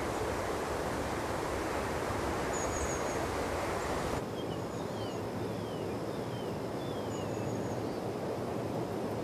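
Outdoor ambience: a steady rushing noise, like wind through foliage, with a small bird's high, thin chirps. A run of short falling whistles comes in the middle, and the rushing thins out abruptly about four seconds in.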